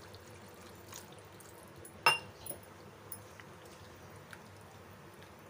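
Water poured from a steel vessel into a kadhai of potato curry, then the curry stirred in the pan. About two seconds in there is a single sharp clink.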